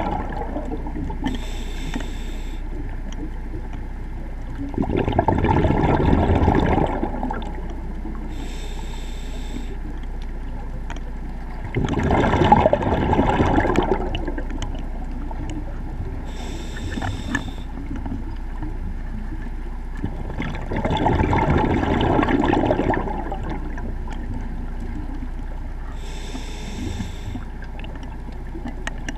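A scuba diver breathing through a regulator underwater. There are about four breaths, each a short hiss of inhalation followed a few seconds later by a longer, louder burble of exhaled bubbles.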